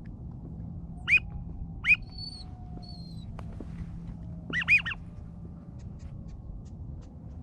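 Duck quacks: a short loud squawk about a second in, another near two seconds, and a quick double near the middle. Faint thin whistles come in between.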